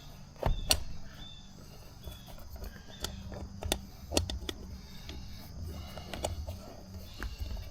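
Hands working an electric scooter's rubber inner tube out of its tire, giving scattered sharp clicks and light taps over low rubbing and handling noise.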